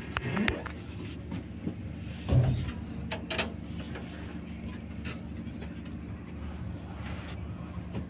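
Stationary diesel train idling with a steady low hum, with scattered light knocks and a louder dull thump about two and a half seconds in.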